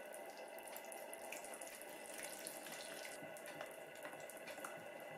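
Coil whisk stirring waffle batter in a glass bowl: wet sloshing and squelching, with frequent small clicks of the wire against the glass.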